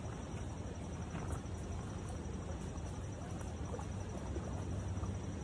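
Wind buffeting the microphone in strong gusts: a steady low rumble with a noisy haze over it.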